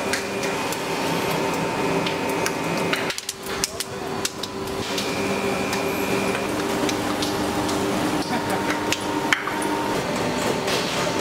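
Factory machinery running with a steady hum of several held tones, with scattered sharp metallic knocks and clanks throughout.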